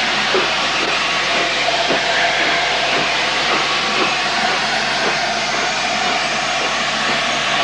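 LNER A4 three-cylinder steam locomotive 'Mallard' pulling away slowly: a steady hiss of steam with soft, slow exhaust beats about one or two a second.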